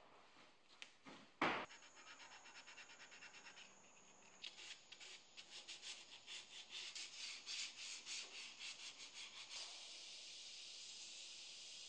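Sandpaper rubbing over a carved walnut figure in quick, rhythmic hand strokes, then, from about ten seconds in, the steady hiss of an aerosol spray can applying finish. A single sharp knock about a second and a half in is the loudest sound.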